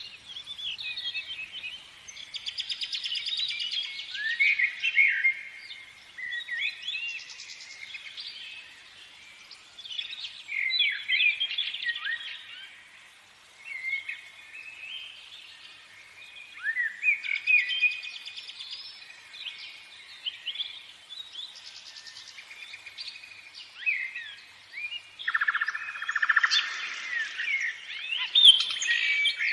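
Songbirds singing and chirping: quick whistled notes sliding up and down, several calls overlapping, coming in bursts with short lulls between them.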